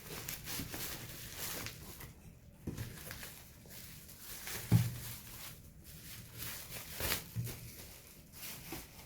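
Bubble wrap rustling and crinkling as it is unwrapped from puzzle cubes by hand, with a few light knocks of the cubes being handled.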